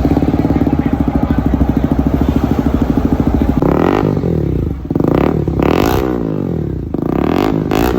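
Motorcycle engine with an aftermarket full exhaust, run without its silencer insert: a loud, fast, even idle pulse, then three sharp revs, each rising and falling back, from about three and a half seconds in.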